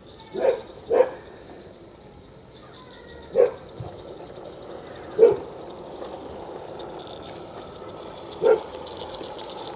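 A dog barking five times, single short barks at uneven gaps, over the steady, gradually louder running of a small live-steam garden-railway locomotive drawing near.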